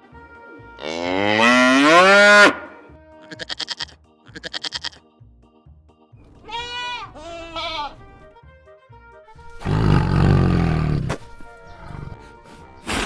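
Farm and wild animal calls played one after another over soft background music: a long rising moo, two quavering goat bleats, two short cat meows, then a rough lion roar.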